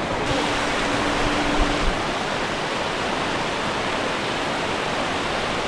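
Waterfall cascading: a loud, steady rush of water. A brief low steady tone sounds over it during the first two seconds.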